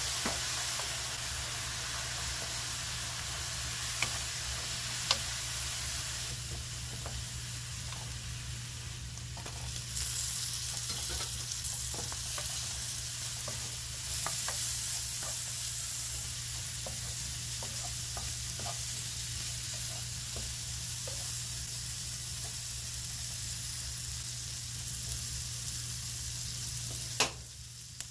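Dried anchovies and green chili pepper sizzling in oil and gochujang sauce in a nonstick frying pan, stirred with a wooden spatula that scrapes and taps the pan now and then. Near the end there is a sharp knock, after which the sizzling is quieter.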